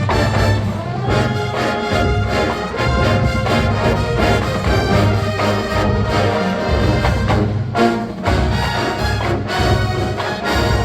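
College marching band playing a funk arrangement, full brass with trumpets and trombones over low brass and drums.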